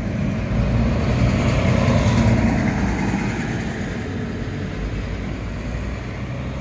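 Steady engine noise of a large vehicle, swelling about a second in and easing off again after about three seconds.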